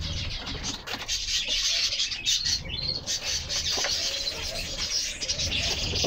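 Pigeons bathing in shallow plastic water basins: scratchy splashing and shuffling with scattered small clicks, among bird chirps and pigeon coos.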